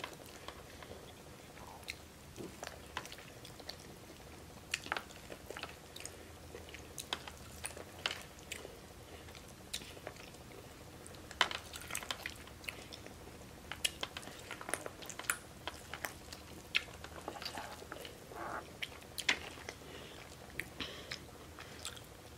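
A person biting and chewing corn on the cob: many small, irregular crunches and clicks of kernels being bitten off and chewed, heard up close.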